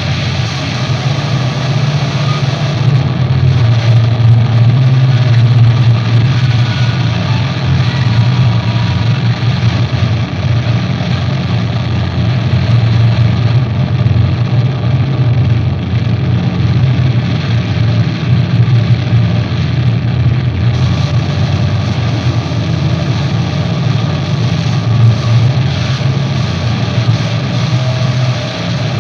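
Electric guitar drone through effects and amplifiers: a dense, steady low rumble with a noisy wash above it, no separate notes or beat.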